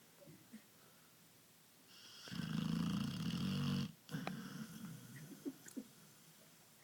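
Pit bull snoring in its sleep: one long, loud snore begins about two seconds in and lasts about a second and a half, then cuts off. Softer, uneven snuffling breaths follow.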